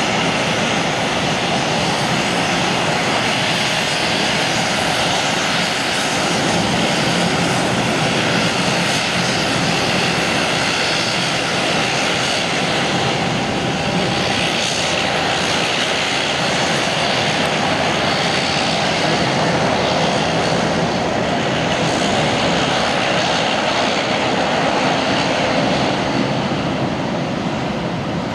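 Twin Pratt & Whitney Canada PW150A turboprop engines of a De Havilland Canada Dash 8 Q400 running at taxi power with their propellers turning, a loud, steady engine and propeller noise that eases slightly near the end.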